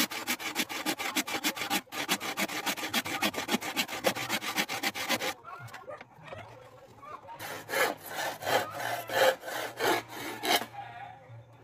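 Handsaw cutting through a wooden block in quick, even strokes, with a brief break about two seconds in; the sawing stops about five seconds in. After a short pause, a second run of slower, louder strokes lasts about three seconds.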